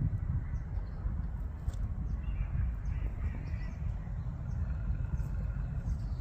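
Outdoor ambience: a steady low rumble with faint bird calls in the middle.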